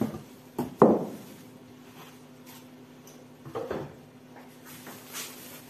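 Knocks and bumps from handling a boxed air fryer in its plastic wrapping and its power cord: two sharp knocks about a second in, the second the loudest, then a few softer bumps past the middle and a click near the end. A faint steady low hum runs underneath.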